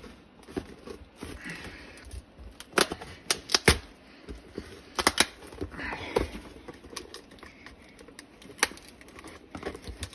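Scissors cutting through the tape of a cardboard shipping box, then the box being pulled open and handled, with cardboard rustling and a scatter of sharp clicks and snaps, several bunched around the middle.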